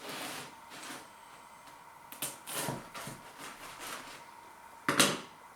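Knife and plate handling while a slice of pizza is cut and served: a string of short scrapes and knocks, with a sharper, louder knock near the end.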